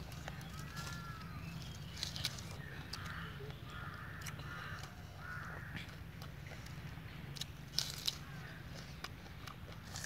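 Hands peeling and breaking a firm green fruit, with crisp snaps and clicks, the two sharpest close together near the end. Birds call harshly now and then in the background over a low steady hum.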